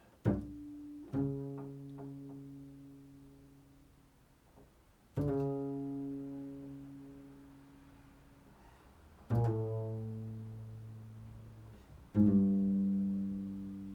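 Slow, improvised low notes on an instrument: five single notes, each with a sharp attack, left to ring and slowly fade.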